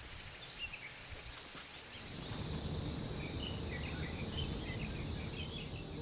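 Rural outdoor ambience: small birds chirping over a steady high insect buzz, with low background noise growing louder about two seconds in.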